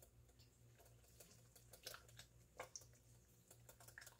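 Faint, irregular clicks and taps of a wire whisk against a glass bowl as butter is stirred in ice water, washing the whey out of homemade butter. A low steady hum runs underneath.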